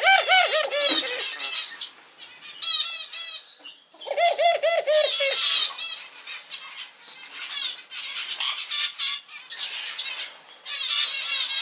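Barbary dove (ringneck dove) giving its laughing call: several bursts of rapid, chuckling notes separated by short pauses.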